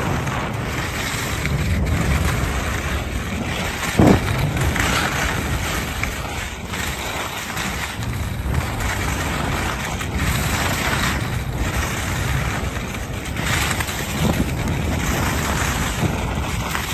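Skis scraping and hissing over hard-packed snow on a downhill run, the noise swelling and fading every second or two, with wind buffeting the microphone. A single brief thump comes about four seconds in.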